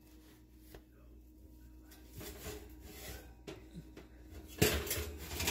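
Handling noise at an open kitchen oven with a baking pan on its rack: light rubbing and rustling, then a sharp metal clatter about four and a half seconds in and another knock at the very end.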